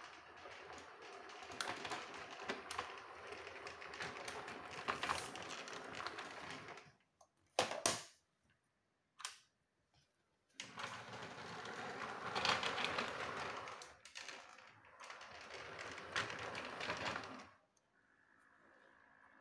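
Playmobil RC train running on plastic track, a rapid mechanical clatter of the motor and wheels. The clatter breaks off about seven seconds in, with a few sharp clicks in the gap, then resumes twice before fading to a faint hum near the end.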